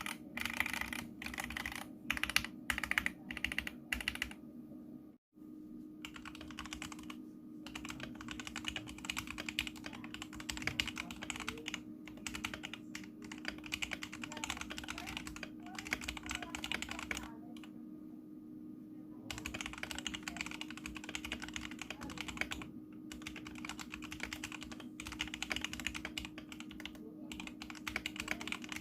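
Fast, continuous typing on a mechanical keyboard, its keycaps clacking in dense runs of keystrokes. There is a brief break about five seconds in and a pause of about two seconds a little past the middle. A faint steady hum runs underneath.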